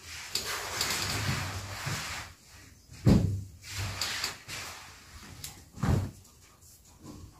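A scraping, rustling noise about two seconds long, then two dull thumps about three seconds apart, with more scraping after the first.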